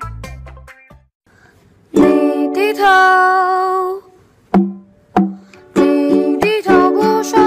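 Background music: a bass-heavy beat fades out in the first second, then after a short pause a new song starts with a long held sung note over ukulele, followed by rhythmic ukulele strumming with singing.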